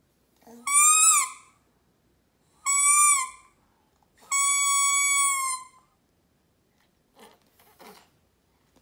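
Baby's plastic toy trumpet being blown: three toots on one note, the first two short with a slight rise and fall in pitch, the third longer and steady, about a second and a half.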